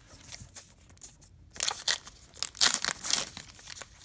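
A Topps Gypsy Queen baseball card pack wrapper crinkling and being torn open by hand. It starts about a second and a half in, after a few faint clicks of cards being handled.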